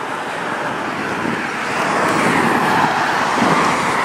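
Steady rushing noise of road traffic, swelling slightly in the middle.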